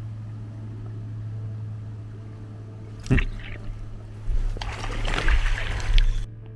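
Water splashing and churning against an underwater camera over a steady low hum: a sharp splash about three seconds in, then a longer burst of churning water that cuts off abruptly near the end.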